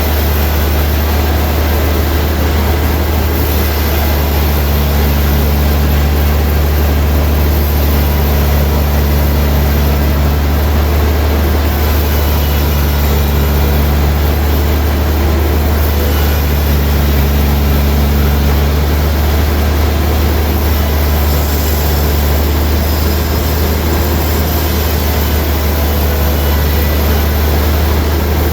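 Sawmill machinery running steadily: a constant heavy low hum with a hiss over it, and a fainter low tone that comes and goes every few seconds.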